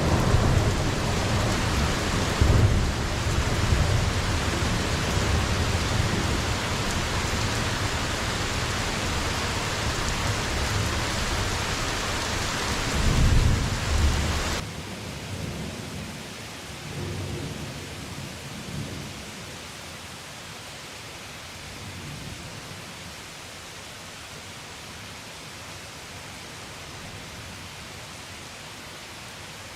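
Heavy rain pouring with thunder rumbling, a loud peal about halfway through. Then the rain suddenly drops to a quieter, steady hiss, with a few fainter rumbles of thunder.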